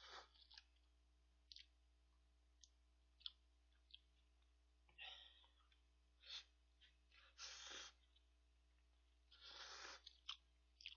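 A person quietly slurping instant ramyeon noodles, four or five short slurps, with small clicks between them.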